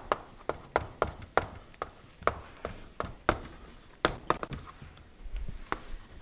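Chalk writing on a chalkboard: a run of sharp chalk taps, two or three a second, with faint scratching between strokes, thinning out near the end.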